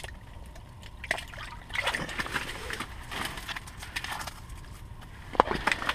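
Water sloshing and trickling at an ice-fishing hole as a hooked crappie is brought up through it, with scattered knocks of handling and a sharp knock near the end.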